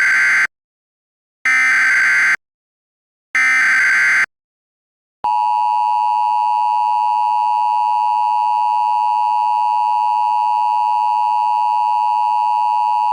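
Emergency Alert System header: the tail of one SAME digital data burst and then two more, each under a second long and about a second apart, followed about five seconds in by the steady two-tone EAS attention signal, which holds.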